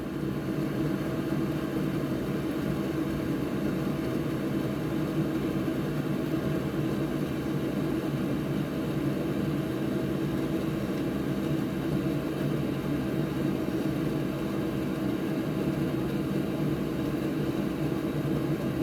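Steady, even whirring hum of a small fan motor.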